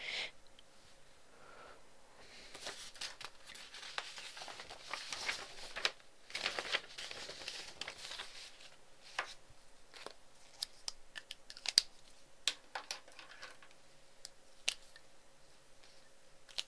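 Paper rustling and crinkling in two longer stretches, then a run of small sharp clicks and taps.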